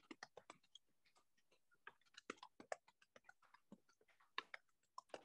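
Faint, irregular soft taps, several a second: hands knocking on the body in a qigong knocking exercise.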